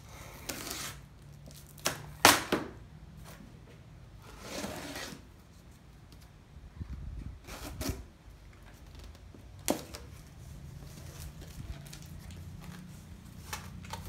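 A blade slitting the packing tape on a cardboard box, then the box's cardboard flaps being pulled open. Scattered scrapes and sharp snaps, the loudest about two seconds in.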